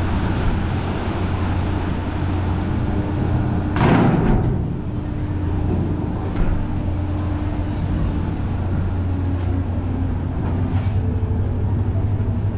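A docking ferry's engines run with a steady low hum. About four seconds in, a single loud thud with a short rushing decay as the bow ramp comes down onto the pier.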